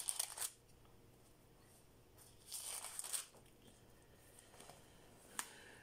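Thin book pages rustling as a Bible is leafed through, in two short bursts, at the start and about two and a half seconds in, with a single small click near the end.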